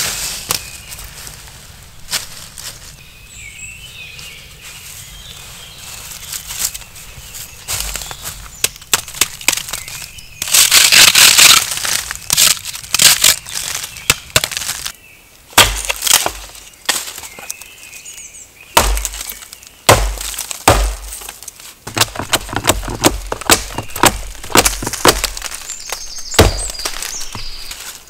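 Dry dead wood being snapped and broken for firewood: a series of sharp cracks and snaps, a dense loud run of crackling about ten seconds in, and several heavier thuds later on.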